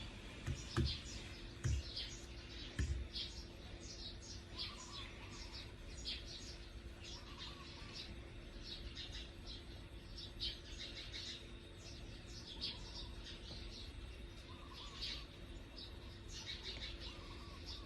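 Small birds chirping, many short high chirps scattered throughout, with a few dull knocks in the first three seconds.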